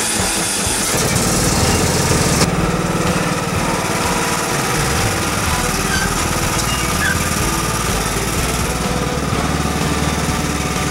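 John Deere riding lawn tractor engine cranking on the starter and catching about a second in, then running steadily as the tractor drives off.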